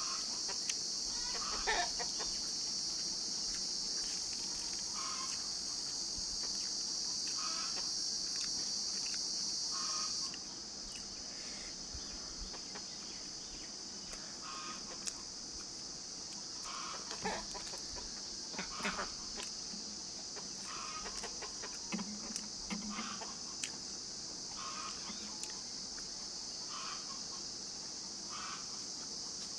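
Chickens clucking now and then, in short calls every couple of seconds, over a steady high hiss that drops in level about ten seconds in. Faint clicks of eating are scattered through it.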